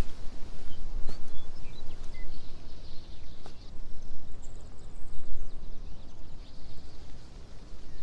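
Outdoor ambience: a steady low rumble with a few scattered soft knocks, faint high chirps in the first couple of seconds and a faint high buzz in the middle.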